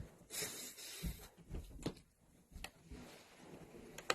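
Quiet handling noises close to the microphone: a short rustle, then a few soft taps and clicks as makeup products and an applicator are picked up, put down and used, with a sharper click near the end.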